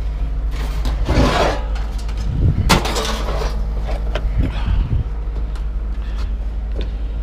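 Steady low engine hum, with scraping and clattering of handled objects about a second in and again around three seconds in, and a few light knocks after.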